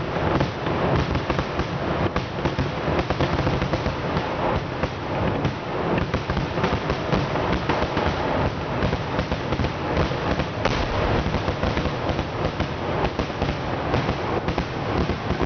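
Fireworks and firecrackers going off in a dense, unbroken barrage: rapid, overlapping bangs and crackles with no pause between them.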